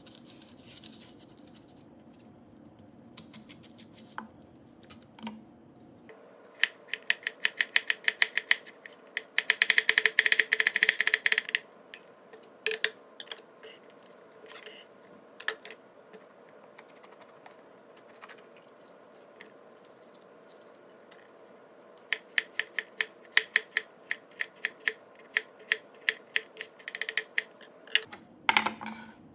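Chef's knife slicing onion and red bell pepper on a wooden butcher-block cutting board: runs of quick, sharp knife taps on the board. The fastest flurry comes about ten seconds in, and a second steady run follows later.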